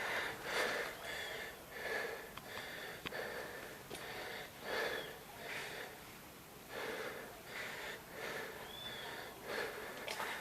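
A person breathing, a breath roughly every second, with one or two sharp clicks in between.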